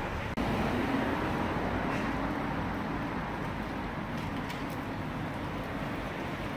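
Town street ambience: a steady hum of traffic with a vehicle engine running. It gets louder about half a second in.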